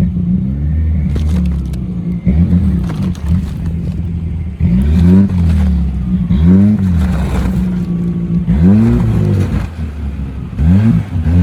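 Off-road 4x4's engine revving up and falling back in repeated surges as it is driven under load through a muddy ditch.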